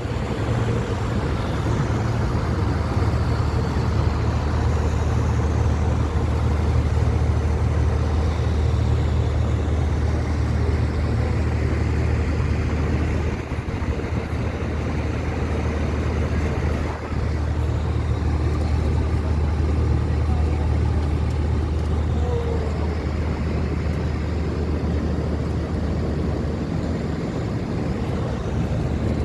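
Airliner cabin noise in flight: a steady low drone of the engines and rushing air, with a brief dip in level twice around the middle.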